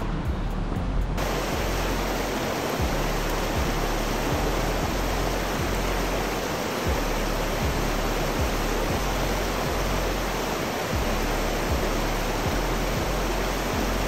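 Steady rush of a shallow rocky river's rapids, starting about a second in.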